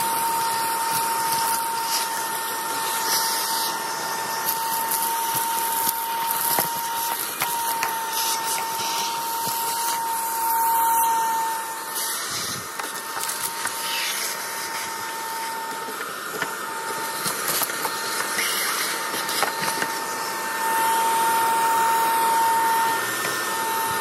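Vacuum cleaner running steadily with a constant whistle, its hose nozzle sucking loose rust and dirt out of a rotten van sill cavity.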